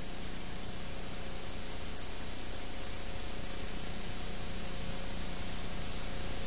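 Steady hiss of static, even and unchanging, with a faint hum beneath it.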